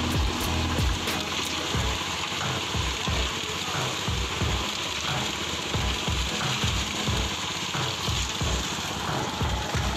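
Background music with a steady bass beat, about two beats a second, over a steady hiss like running water or rain.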